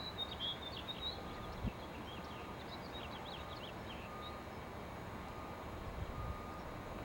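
Steady low background rumble with small birds chirping in short bursts, mostly in the first second and again around three seconds in.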